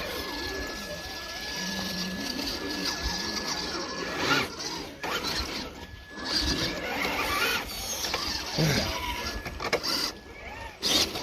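Small electric motors and gearing of radio-controlled rock crawlers whirring, with a thin high whine that comes and goes and occasional short louder clatters.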